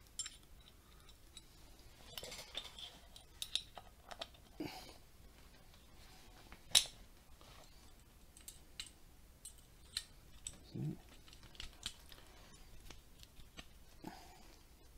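Small metal clicks and light scrapes of an Enfield Mk III rifle bolt's parts being handled and fitted back together as the cocking piece goes back on, with one sharper click about seven seconds in.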